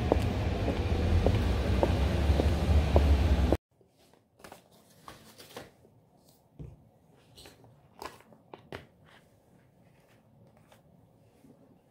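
Outdoors while walking: a loud, steady low rumble with regular footsteps about 0.6 s apart. After an abrupt cut a few seconds in, it turns to faint rustling and light taps of plastic packets being handled and set down on a table.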